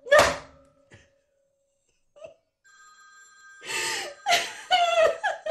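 A short loud burst at the very start, then a telephone ringing with steady tones. From a little past halfway, a woman's distressed, voice-like sounds come in over it.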